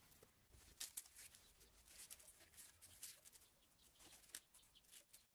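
Near silence: room tone with a few faint scattered clicks and rustles.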